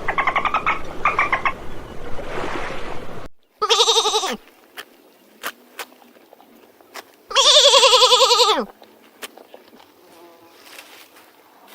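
Two loud, quavering bleats from a goat, the second longer. They come after another animal's rapid pulsed call, which cuts off abruptly about three seconds in.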